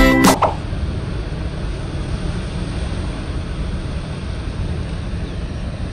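Steady rush of surf breaking on a rocky shore. A music jingle cuts off about half a second in.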